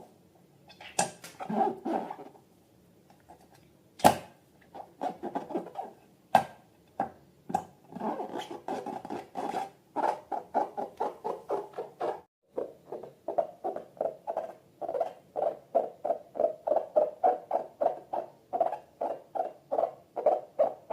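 Slime being squeezed and worked by hand, making sticky wet clicks and pops. The clicks come irregularly at first, then settle into a steady run of about four a second in the second half.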